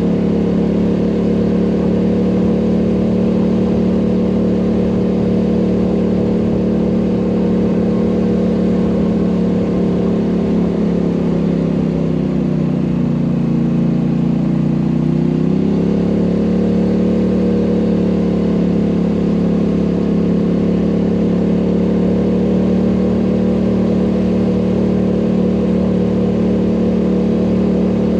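ATV engine running steadily under way on an uphill ride. About halfway through, its pitch drops for a few seconds, then rises back to where it was.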